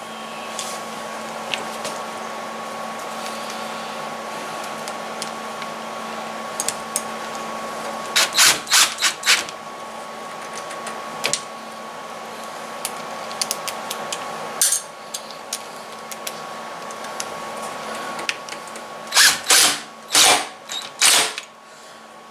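Power drill driving screws through a brass hinge leaf into the edge of a wooden door: a steady motor whine that stops about 15 seconds in, with a burst of sharp clacks around 8 seconds and another, louder one near the end.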